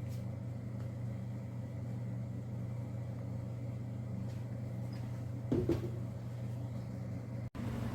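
A steady low hum, with a short vocal sound about five and a half seconds in and a brief cut to silence near the end.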